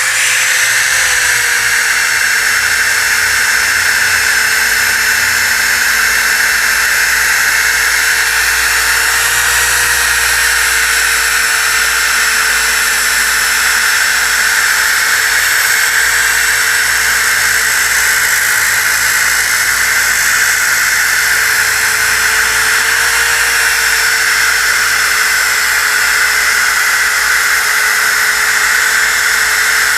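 DeWalt DWE6401DS disc sander running at full speed with 80-grit paper, sanding dried glue squeeze-out off a pine glue-up panel: a loud, steady whine whose pitch dips slightly now and then.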